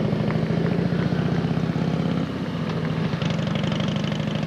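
Steady low motor hum, dipping slightly a little over two seconds in.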